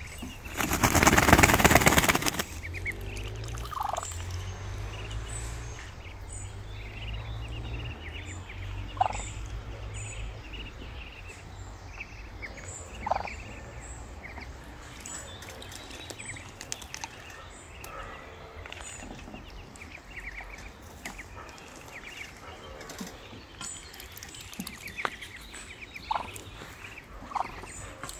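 Muscovy ducks and ducklings calling: scattered short calls on and off. A loud rush of noise hits the microphone about a second in and lasts about two seconds.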